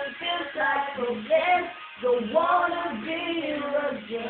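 Voices singing a song, with some notes held for about a second.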